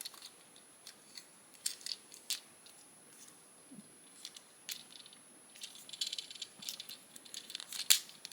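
Small plastic clicks and rattles of a Transformers action figure's parts being handled and snapped into place as its hands are tucked in for truck mode, with one sharper click near the end.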